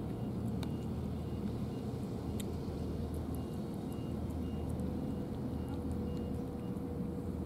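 Steady low rumble of a nearby motor vehicle running, with a faint high beep repeating about twice a second through the middle, and faint scattered ticks.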